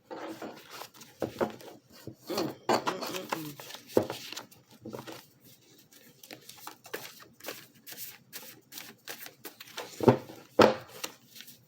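Tarot cards being shuffled and handled: a run of quick clicks and rustles, with two louder snaps near the end.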